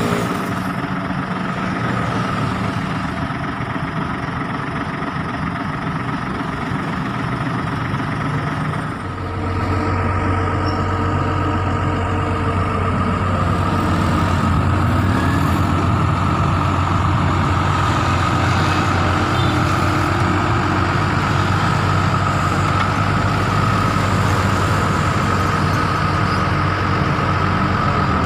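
Hino FG 235 Ti crane truck's diesel engine idling. About nine seconds in it speeds up and runs steadily while the HMF 1800 knuckle-boom crane is raised hydraulically, with a steady high whine over the engine drone.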